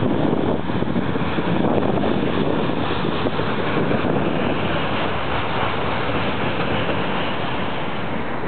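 Double-stack intermodal freight cars rolling past at a steady pace, a continuous noise of steel wheels on the rails with no horn.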